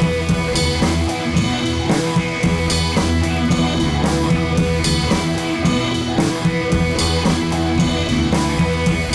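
Background music with guitar and drums, a steady beat.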